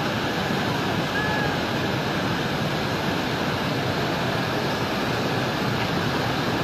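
Swat River in flash flood: a steady rush of muddy floodwater carrying timber and debris.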